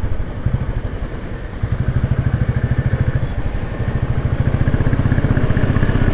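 Motorcycle engine running under way with an even beat of exhaust pulses. It eases off briefly early on, then pulls harder from about a second and a half in, getting louder toward the end.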